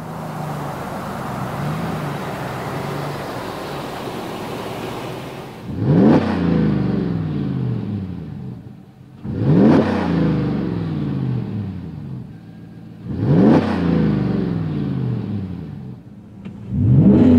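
5.3L V8 of a 2009-13 GM Silverado/Sierra 1500 through a Flowmaster FlowFX cat-back exhaust with a straight-through muffler. For the first few seconds the truck is driving along. Then it is revved from idle three times, each a quick climb in pitch that falls back to idle, with a fourth rev starting at the very end.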